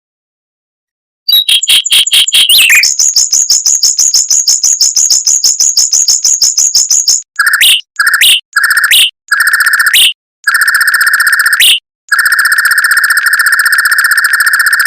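Mockingbird song in fast, tight trills of rapidly repeated notes. About a second in, a long high trill runs for some six seconds. It is followed by several shorter, lower trilled phrases, each ending in a quick upward flick, and the last phrase is long.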